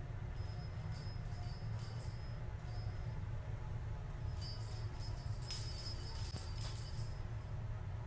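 Small jingle bell in a dangling ball toy ringing in shakes as a Bengal kitten bats at it on a play tunnel, in two stretches of jingling, the second louder.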